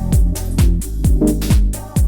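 Electronic dance music with a steady four-on-the-floor kick beat, about four beats a second, over a repeating bass line that falls in pitch.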